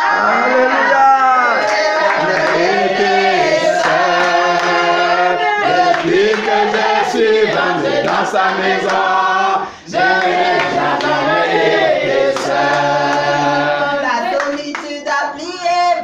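A small group of voices singing a French praise song together, with a few hand claps; the singing breaks off for a moment about ten seconds in.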